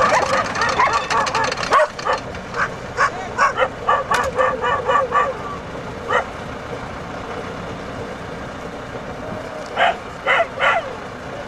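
Dogs barking and yelping: a quick run of short barks in the first five seconds, then a few more near the end. Underneath is the steady running of a tracked all-terrain vehicle's engine.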